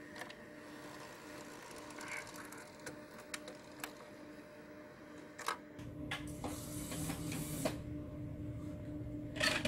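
Panasonic AU-65H MII professional VTR unloading a tape on eject. The transport mechanism gives a series of light clicks, then a motor runs with a whirr from about six seconds in. A louder clack comes near the end.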